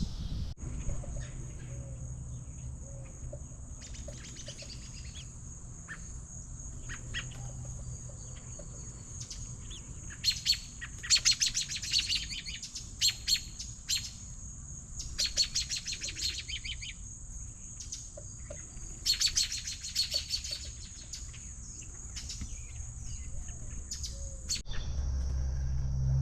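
American robin calling in several short bursts of rapid, sharp notes, bunched in the middle stretch.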